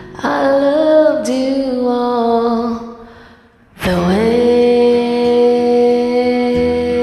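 Singing voice holding two long notes: the first wavers and sinks a little, and after a short break about three seconds in, the second is held steady for several seconds.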